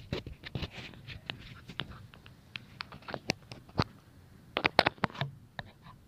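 Irregular sharp clicks and light knocks, with a denser cluster about four and a half seconds in: handling noise of an action camera on its mount.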